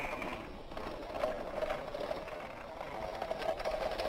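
Battery-powered toy train running on plastic track: a steady small-motor whir with light clicking and rattling from the wheels and wagons.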